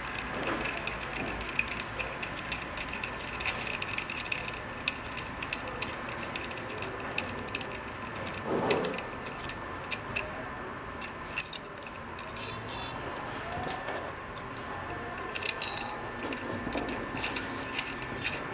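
Scattered light metallic clicks and small rattles as fingers loosen the nuts on the threaded metal barrel of a 3D printer's auto bed leveling sensor and work it out of its bracket. A faint steady high tone runs underneath.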